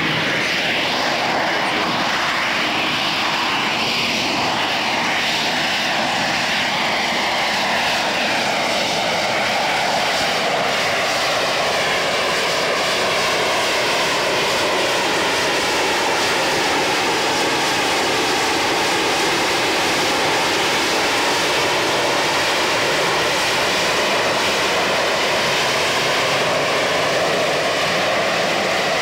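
AV-8B Harrier II hovering, its Rolls-Royce Pegasus vectored-thrust turbofan at high power: loud, steady jet noise whose tone wavers slowly as the aircraft holds and drifts in the hover.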